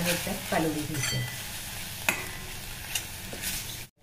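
A steel spoon stirring and scraping around a stainless steel kadhai, with a few sharp scrapes, over the steady sizzle of spiced tomato masala frying in oil. The sound cuts off suddenly just before the end.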